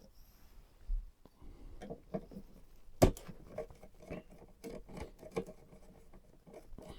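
Hands handling PC build parts: irregular light taps, clicks and rustles of hard plastic and metal, with one sharp, louder click about three seconds in.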